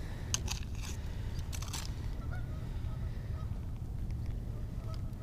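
Steady low wind rumble on the microphone, with a few sharp clicks in the first two seconds. Faint, short honking bird calls repeat every second or so from about two seconds in.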